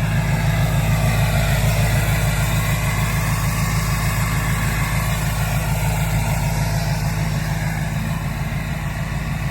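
Diesel pickup truck engine idling steadily just after a glow-plugged cold start in freezing weather, warming up.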